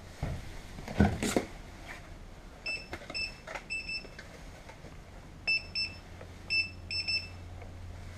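School bus child check alarm beeping: short, high-pitched electronic beeps in two groups, about three seconds in and again about five and a half seconds in. This is the alarm armed and calling for the disarm button at the rear of the bus to be pressed. A loud thump about a second in.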